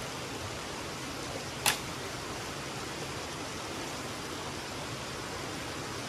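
Stream and river water gushing in a steady, even rush, with one sharp click nearly two seconds in.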